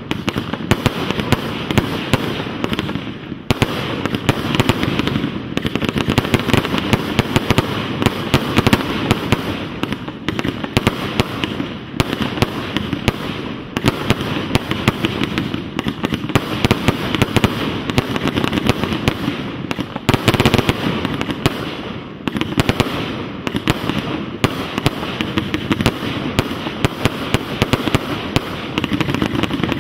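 Rubro Event Cake no.5 fireworks cake firing a continuous barrage: launch thumps and bursting shells, many sharp bangs and pops every second with only brief lulls.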